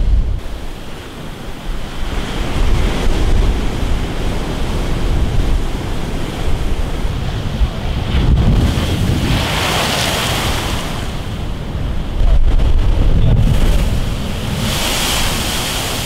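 Rough sea surf surging and breaking against a concrete seawall, with wind buffeting the microphone as a low rumble. Two louder crashing, splashing surges come about halfway through and near the end.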